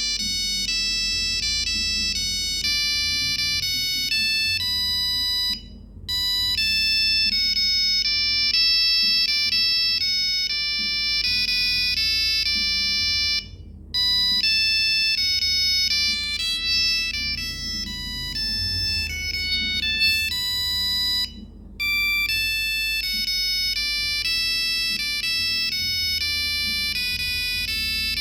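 Nokia 3315 monophonic ringtone number 26 playing from the phone's speaker: a fast melody of buzzy electronic beeps, one note at a time. The tune repeats about every eight seconds, with a brief gap before each repeat, three times.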